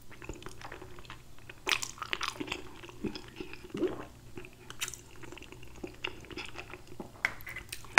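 A person chewing a mouthful of fettuccine Alfredo: soft wet mouth sounds and smacks, with a few sharper clicks.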